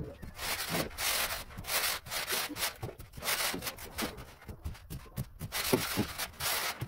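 A screed straightedge dragged back and forth across semi-dry sand-cement floor screed to level it: a series of gritty scraping strokes.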